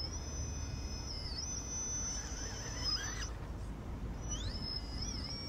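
RC crawler's brushless motor and ESC whining at crawling speed, a thin high whine with tones that glide up and down as throttle is fed. The whine drops out about three seconds in and comes back with rising glides about a second later, over a low steady rumble.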